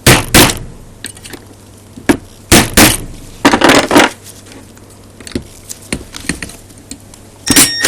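Impact driver hammering in short bursts on a seized screw that will not come out: several loud rattling bursts of about half a second, bunched near the start, around two to four seconds in, and near the end.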